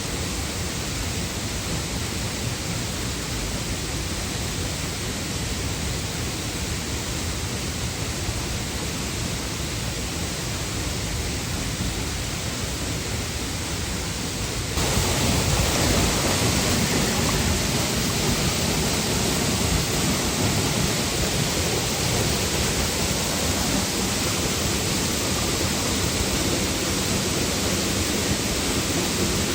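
Waterfall rushing steadily. It becomes suddenly louder and brighter about halfway through.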